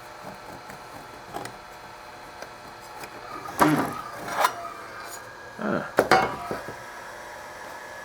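Plastic cover of a small LED moving-head light being handled and prised open: a few sharp clicks and two clusters of knocks and scrapes. Underneath, the fixture's cooling fan runs steadily.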